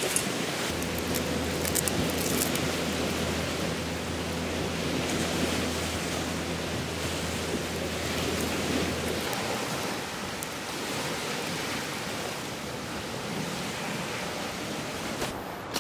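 Steady rush of sea waves washing on the shore. A low, steady hum runs underneath from about a second in until about nine seconds.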